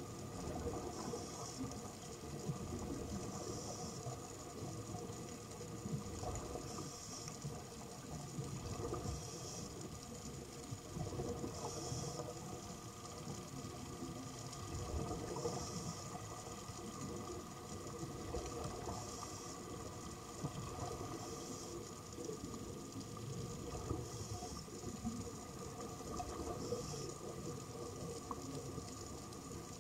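A scuba diver's breathing heard underwater: a short regulator hiss every two to three seconds over a steady bubbling rumble of exhaled air.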